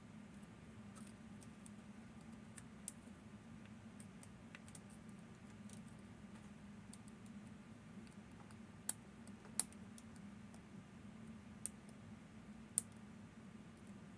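Faint metallic clicks and ticks of lock-picking tools working the eight levers of a Fichet 787 lever lock, with a few sharper clicks between about nine and thirteen seconds in, over a low steady hum.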